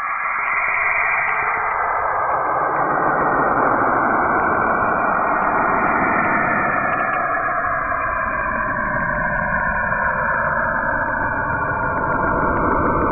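Saturn's auroral radio emissions converted into audible sound: a continuous hiss with slowly drifting, wavering bands of pitch.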